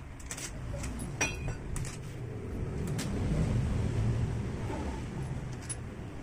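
A few sharp metal clicks from bolts and tools on the Yamaha Mio engine's crankcase while the cover is being bolted down; one clink about a second in rings briefly. A low rumble runs underneath and swells in the middle.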